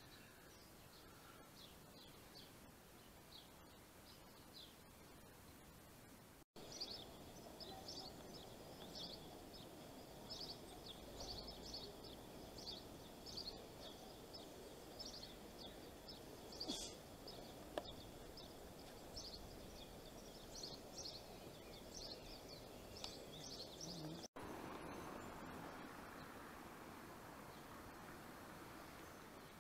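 Faint outdoor ambience in cut-together segments: near silence at first, then from about six seconds in small birds chirping busily in quick short calls over a low steady background noise, which stops abruptly a few seconds before the end, leaving only a faint steady hiss.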